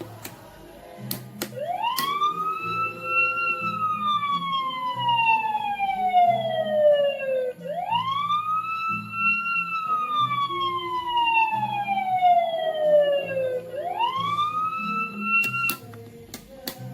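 Electronic fire-engine siren sound from a toddler's busy-board toy speaker, wailing up quickly and then sliding slowly down, three times, over a simple electronic tune. Plastic switch clicks come about a second in and again near the end.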